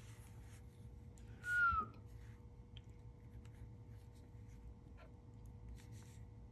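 A single short whistle, falling in pitch, about a second and a half in. Faint clicks and rustles from hands handling the lens come later.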